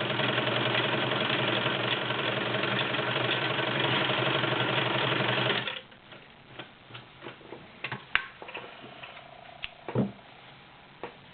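Brother Model 2010 sewing machine running steadily as it sews a zigzag stitch, then stopping abruptly about six seconds in. After that come scattered small clicks and knocks, with a louder thump near the end.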